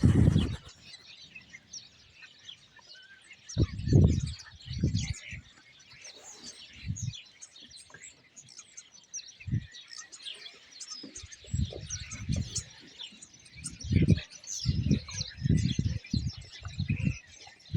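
A large flock of common starlings chattering: many overlapping chirps, whistles and clicks. Irregular low rumbles come and go, loudest in the second half.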